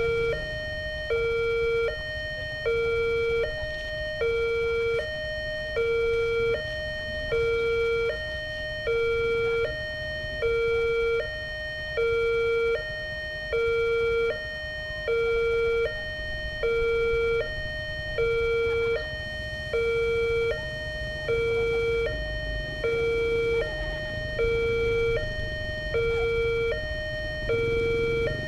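Railway level-crossing gate siren sounding a steady two-tone alarm. It switches back and forth between a lower and a higher tone, each held just under a second, and the lower tone is louder. The siren warns that the crossing gates are closing for an approaching train, with a low rumble underneath.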